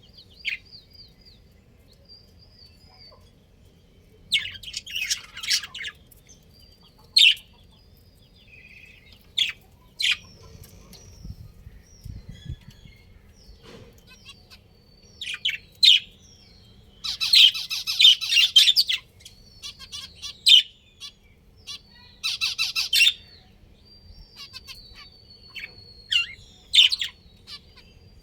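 Budgerigars chirping: scattered short, high calls and thin whistles, with a longer burst of rapid chatter about two-thirds of the way through.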